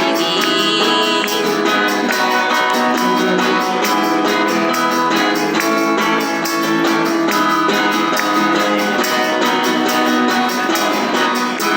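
Live band playing with strummed acoustic guitars at a steady beat, with rhythmic percussion strokes over them. The music drops off right at the end as the song closes.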